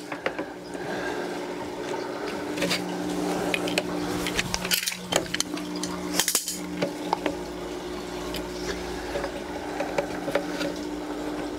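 Plastic tubing and a plastic reservoir bucket being handled: scattered light clicks, knocks and rubbing, with two sharper knocks near the middle, over a steady low hum.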